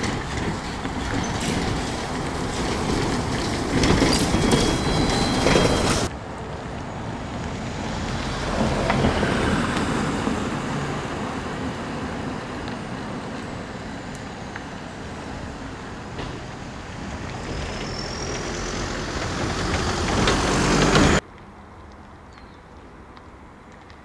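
Trolleybuses and other vehicles passing on a city street. Around four to six seconds in, the traffic is at its loudest and a brief high squeal sounds. The sound cuts off abruptly about six seconds in, and again near the end to a much quieter street.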